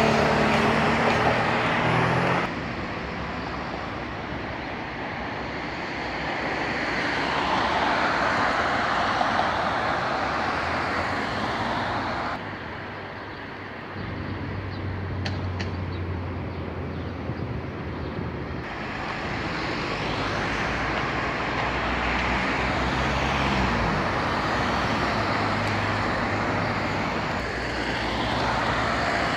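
Road traffic: cars passing close by, with engine hum and tyre noise swelling and fading as each goes past. The sound jumps abruptly a few times.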